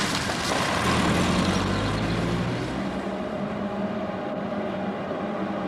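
A car engine running, then, about three seconds in, the steady hum of a red ÖBB electric locomotive.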